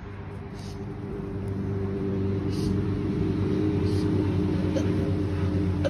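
A low, steady droning hum that swells over the first two seconds and then holds.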